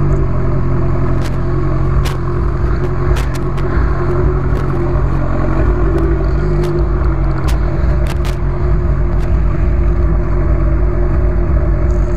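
Honda CB1000R's inline-four engine running at low, fairly steady revs as the motorcycle rides slowly in traffic, with wind buffeting the microphone and a few scattered clicks.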